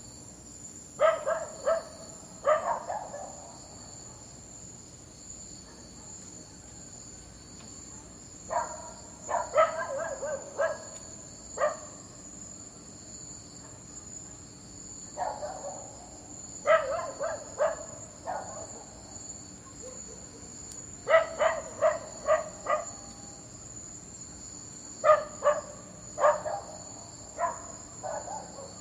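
A dog barking in bouts of three to six quick barks, five bouts spaced several seconds apart, over a steady high-pitched background tone.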